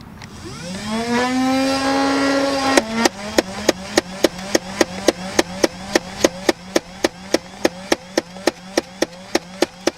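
Nerf Rival MXVI-4000 motorised blaster spinning up its flywheels with a rising whine, then firing foam balls in rapid automatic fire, about four shots a second. The flywheel hum drops a little in pitch once firing starts, as the wheels load up.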